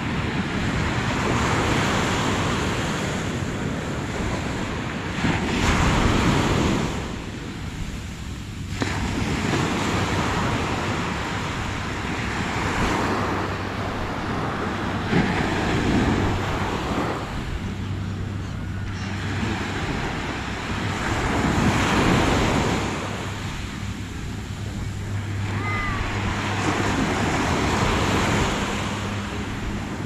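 Small waves breaking and washing up the sand, the surf swelling and fading every few seconds.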